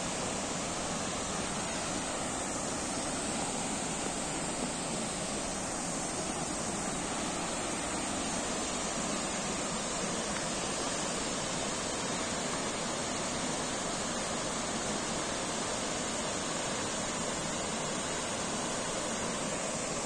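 Steady, unbroken rush of a tall jungle waterfall and the rocky cascades and stream below it.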